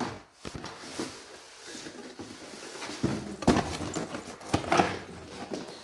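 A cardboard parcel being opened by hand: irregular rustling, scraping and small knocks of packaging, busiest in the second half.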